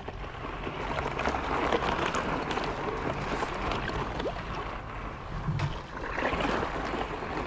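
Thin skim ice on a creek cracking into a dense crackle of small clicks as a paddleboard pushes through it, with the paddle splashing and breaking the ice near the end.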